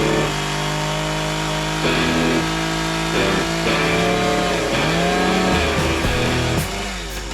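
Background music with held notes that change every second or so.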